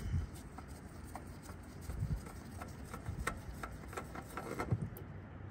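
Scattered light clicks, rubs and soft knocks of a spin-on oil filter being turned off by a gloved hand.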